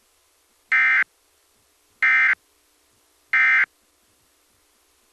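Emergency Alert System end-of-message signal: three short, identical bursts of SAME digital data tones, a harsh buzzy screech about a second apart, marking the end of the alert.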